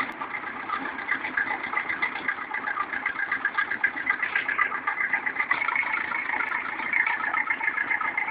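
Engine running steadily with a fast, even pulse at a hydraulic truck tipper that is raising a beet-laden dump truck to unload it.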